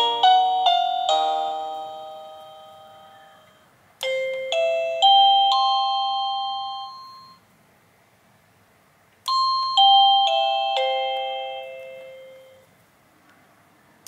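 INTENDVISION wireless doorbell receiver playing its chimes: a fast electronic tune ends and fades, then a four-note chime climbs up and rings out, and after a short pause a four-note chime steps back down and rings out.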